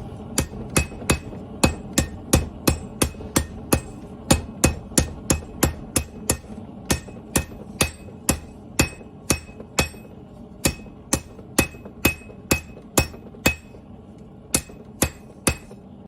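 Forging hammer striking steel on an anvil in a steady run of blows, about two to three a second, each with a bright metallic ring. The blows pause briefly near the end, then resume for a few more strikes.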